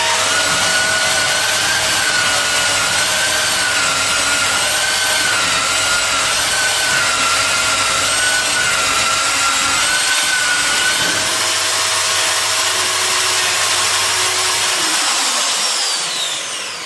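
Electric facing tool (pipe planer) of a butt-fusion welder running and shaving the ends of plastic pipes pressed against it, a steady rasping whine. Near the end its motor shuts off automatically and winds down with falling pitch, the sign that the set 5 mm of facing is done.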